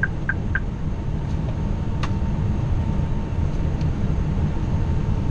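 Steady low rumble of airflow and engines in an Airbus A340-600 cockpit on final approach. In the first half-second come three short, fading beeps: the tail of the autopilot-disconnect warning after the autopilot has been switched off.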